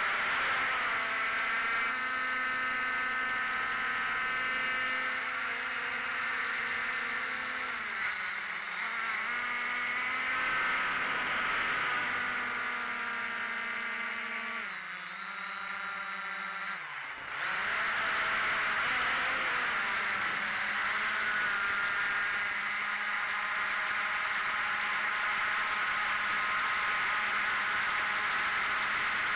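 Quadcopter's electric motors and propellers whining steadily, heard from its onboard camera. About halfway through the pitch falls and the sound thins for a couple of seconds, then jumps back up sharply.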